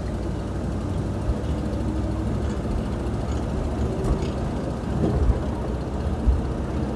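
Steady low road and engine rumble from inside a 1964 Ford Thunderbird driving along under the 390 four-barrel V8, with a few small brief knocks.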